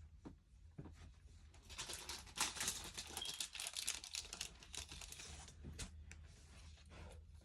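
Plastic crinkling and rustling from card sleeves and their packaging being handled, with small clicks and taps, loudest from about two to four and a half seconds in.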